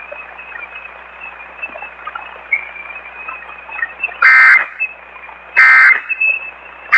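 Emergency Alert System end-of-message code heard over AM radio: after a few seconds of radio hiss with a faint steady whistle, there are three short, loud, buzzy digital data bursts about a second and a half apart. The bursts mark the close of the alert.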